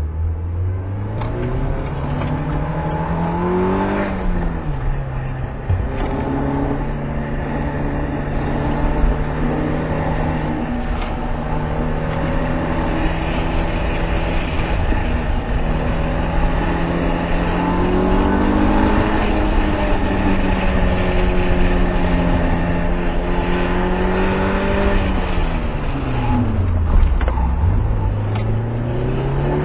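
Mitsubishi Lancer Evolution's turbocharged four-cylinder engine, heard from inside the cabin on a fast track run. The revs climb in the opening seconds and drop with an upshift about four seconds in, then rise and fall gently at speed. Near the end the revs fall away sharply as the car slows, then climb again.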